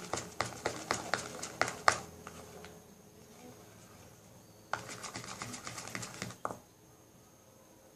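Slime being mixed in a pot after the borax activator is added: quick sticky, clicking strokes for about two seconds, a pause, then a second run of strokes near the middle.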